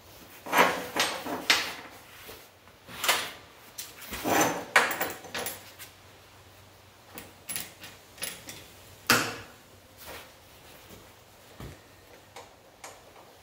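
Small steel parts clinking and knocking on a steel welding table as they are handled and clamped together with locking pliers: a string of irregular sharp knocks, the loudest near the start, around four to five seconds in and about nine seconds in, then fewer and fainter.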